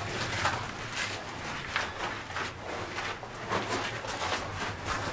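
Irregular scuffs and rustles of a hiker scrambling through a narrow rock slot, with the body-mounted camera rubbing as they move.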